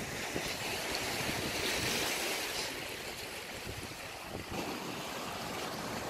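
Sea surf washing over a rocky shore: a steady rush that swells about two seconds in, with wind rumbling on the microphone.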